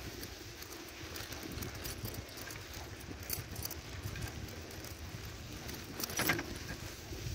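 Light metallic jingling and scattered clicks over a low rumble of wind and handling noise, with a louder clatter about six seconds in.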